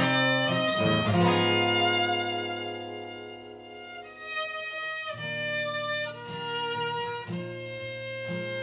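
Acoustic jazz standard played on a bowed violin-family instrument over plucked string accompaniment: a long sustained note that fades away, then the melody picks up again about five seconds in.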